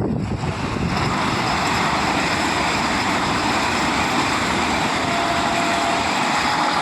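Express train passing at speed close by: a loud, steady rush of wheels on rails that builds over the first second and then holds.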